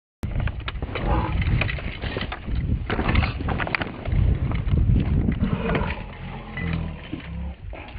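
Wind buffeting and irregular knocks on a camera that is being jostled hard, as by someone running or riding.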